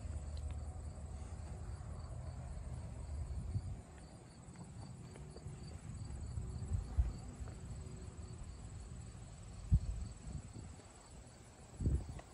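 Insects chirping steadily in an even, repeating pattern, over a low rumble. A few dull thumps stand out, the loudest about two-thirds of the way in and another near the end.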